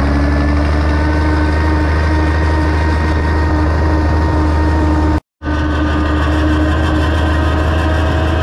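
Farmall 806's six-cylinder diesel engine running steadily under way on the road. The sound cuts out for an instant about five seconds in, then resumes.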